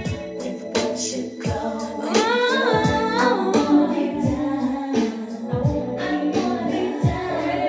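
Yorkville EF10P powered speaker playing a song with female singing over a steady kick-drum beat.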